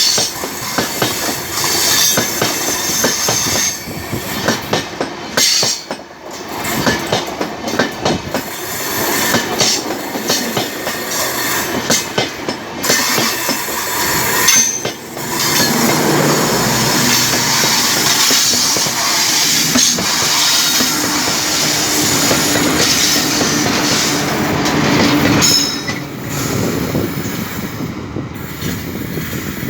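Passenger train rolling past close by, wheels clattering rapidly over the rail joints, with brief high wheel squeals at times.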